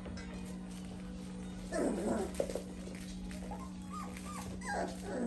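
Mini goldendoodle puppies whimpering and yipping: a burst around two seconds in, then a run of short high whines near the end.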